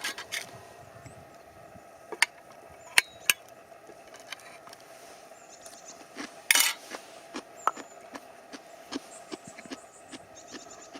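Scattered sharp knocks and clinks of objects being handled, with a short rattling burst a little past the middle, over a faint steady hum.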